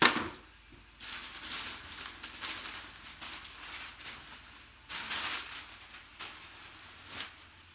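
A sharp knock, then crinkling and rustling of packaging as an item is handled and unwrapped, in two spells with a lull between.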